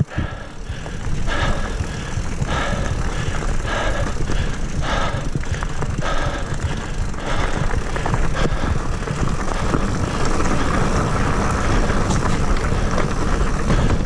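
Mountain bike riding over dirt singletrack, heard from a camera on the bike: a steady wind rumble on the microphone with tyre noise on the trail. A rasping sound comes about once a second in the first half, and the sound is briefly muffled at the very start.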